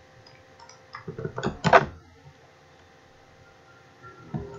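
Computer keyboard and mouse clicks: a few light clicks, then a quick run of sharp clicks and knocks between one and two seconds in, and a few more clicks near the end.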